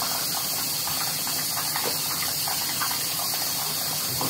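Tap water running steadily into a sink, with small splashes, as black soap is rinsed off a face.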